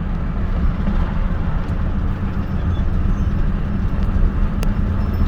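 Steady low rumble of a moving car: road and engine noise, with a faint click near the end.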